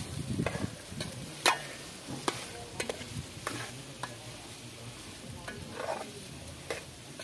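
Metal spoon stirring chicken curry in a metal cooking pot, scraping and clinking against the pot at irregular moments, over a steady sizzle of the curry frying.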